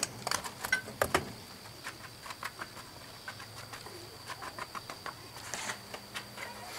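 Light clicks and gritty scraping of molding sand and metal as a fresh aluminum casting is dug and pulled with pliers out of a foundry flask; the clicks come thickest in the first second or so.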